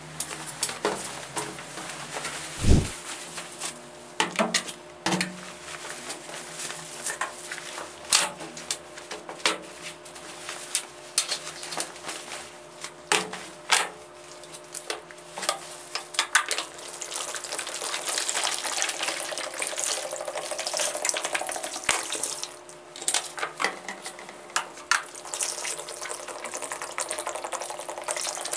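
Clicks, knocks and light clatter of things being handled on a table, with liquid poured into a plastic basin of jeans in the second half.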